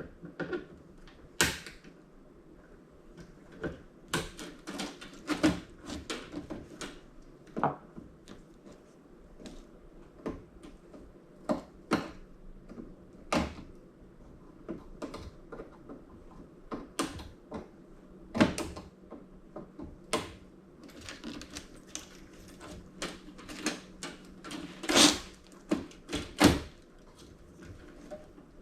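Wire cutters snipping through the wires and cords inside a flat-screen TV, one after another: irregular sharp snips, a second or so apart, the loudest two near the end.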